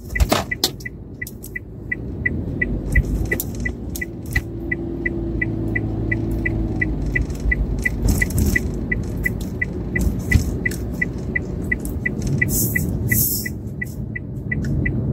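Car turn-signal indicator ticking steadily about twice a second inside the cabin, over the low rumble of the engine and tyres on the road. A sharp click comes at the very start.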